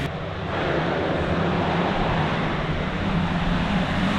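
Motocross motorcycle engines running, a steady drone under a loud rushing noise.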